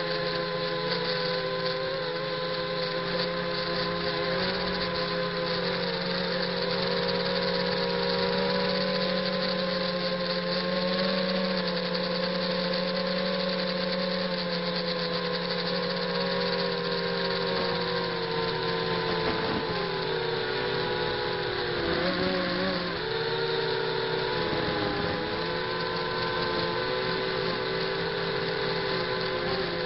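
Brushless motors and propellers of a ZMR 250 quadcopter, heard from its onboard camera, whining steadily in flight. About two-thirds of the way through, the pitch dips and recovers several times as the throttle changes.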